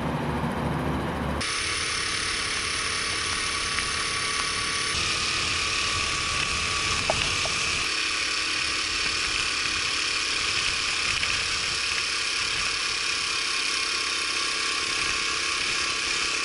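Honda Super Cub 50's small four-stroke single-cylinder engine running at a steady cruise, with road and wind noise, heard from a camera mounted on the moving bike. A low rumble comes first and gives way to the riding sound about a second in.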